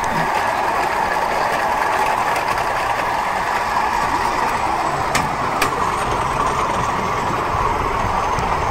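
Pedal-powered rail bike rolling along steel rails: a steady rolling hum of its wheels on the track, with two sharp clicks about half a second apart around the middle.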